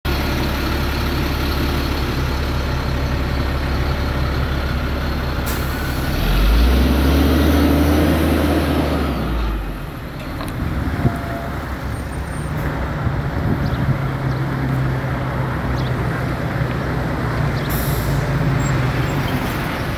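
Heavy trucks driving past on a road, a steady engine rumble that swells as one goes by about six to nine seconds in, then settles into a steady drone.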